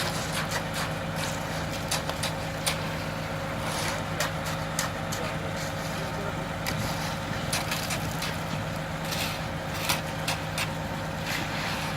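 An engine running steadily, with many short sharp clicks and scrapes on top.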